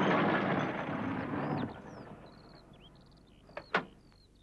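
A small delivery van's engine running as it pulls up, then cutting off after about a second and a half, with birds chirping. Near the end come two short sharp clicks as the van's door opens.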